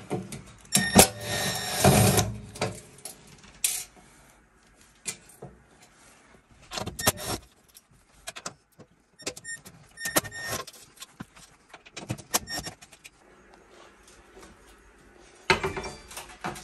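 Cordless drill running for about two seconds near the start, backing a screw out of the stainless steel range top. Short drill whirs and scattered clicks of screws and metal follow, and near the end there is a louder clatter of sheet metal as the top panel is lifted.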